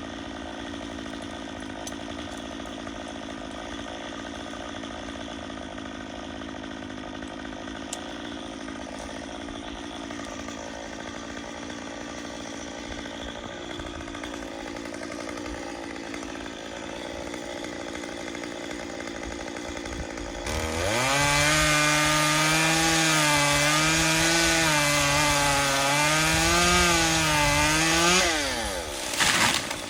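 Two-stroke chainsaw running at a lower level, then throttled up about two-thirds of the way in and cutting, its pitch wavering up and down as the chain loads in the wood. Near the end the engine pitch drops away as it is let off.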